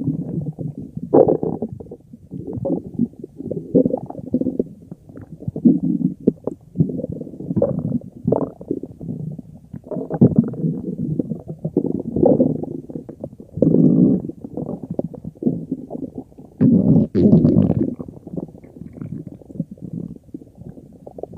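Stomach growling: an unbroken run of irregular gurgles and rumbles that swell and fade, with the loudest stretches about halfway through and again near the end.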